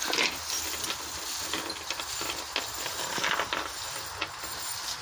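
A hand rummaging in a pocket for a loose bolt: rustling with scattered small clicks and light metallic clinks, along with handling noise from the moving camera.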